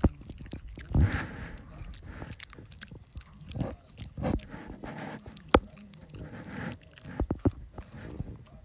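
A Chihuahua-pug mix chewing and biting on a cord close to the microphone: irregular clicks and short chomping bursts, with one sharp loud click about five and a half seconds in.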